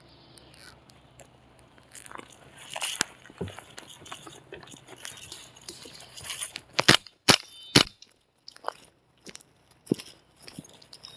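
Footsteps crunching and rustling through dry fallen leaves, with irregular brushing and crackling. About halfway through come three loud sharp cracks in quick succession, roughly half a second apart.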